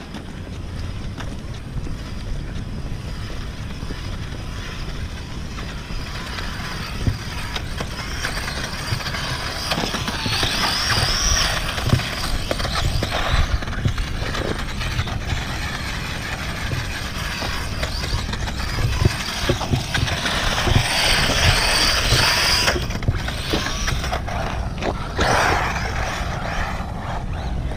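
WLtoys 20409 1/20-scale electric RC car driving on asphalt, its small motor giving a high whine that rises and falls as it speeds up and slows, loudest about ten seconds in and again about twenty seconds in. Under it runs a steady low rumble with small scattered ticks of the tyres on the pavement.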